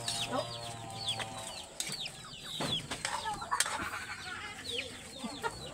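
Birds chirping with short, falling calls, several a second, with two sharp clinks about midway from a metal spatula stirring food in a wok over a wood fire.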